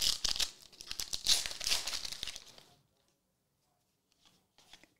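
Foil wrapper of a Topps NBL basketball card pack crinkling and tearing as it is ripped open by hand, a dense crackle for about the first two and a half seconds. Then it falls nearly silent, with a few faint ticks near the end.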